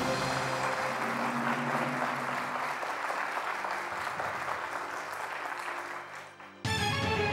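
Studio audience applauding a correct answer over steady game-show music. Near the end the applause dies down and a louder music cue cuts in suddenly.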